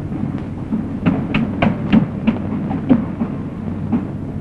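Steady hiss and low mains hum of an old optical film soundtrack, with a run of about seven irregular knocks between one and three seconds in and a fainter one near the end.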